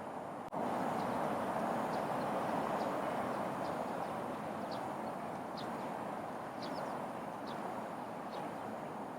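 Short, high bird chirps, each sliding slightly downward, repeating about once a second over a steady background hiss that grows louder about half a second in.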